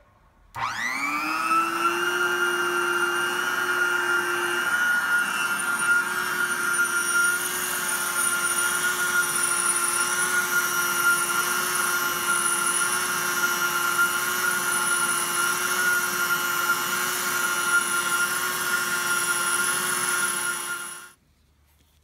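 Heat gun switched on, its motor and fan rising in a whine as they spin up, then running steadily while blowing hot air onto a guitar pickup's metal cover, and switched off about a second before the end.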